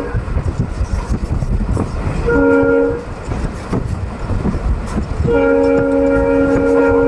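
Multi-note EMD-style horn of a WAP-4 electric locomotive: a short blast a little over two seconds in, then a long blast starting near the end. Underneath is the steady rumble and clatter of the moving train.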